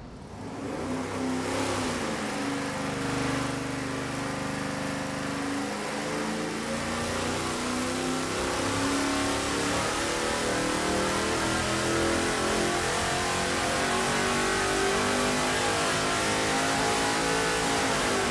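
LS3 V8 on an engine dyno making a wide-open-throttle pull on 116-octane leaded race gas. The engine note climbs steadily as the revs sweep from about 3,000 to 6,400 RPM, then drops away at the end of the pull.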